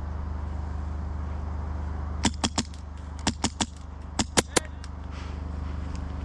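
HPA airsoft rifle firing quick semi-auto shots: three fast groups of three sharp cracks, about a second apart.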